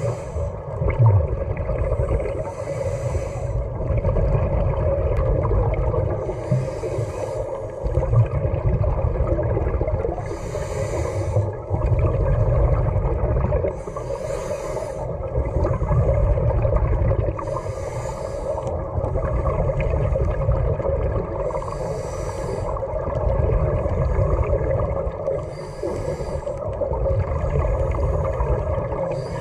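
Scuba regulator breathing heard underwater: a short hiss roughly every four seconds as the diver draws a breath, with bubbling from the exhaled air in between, over a steady low hum.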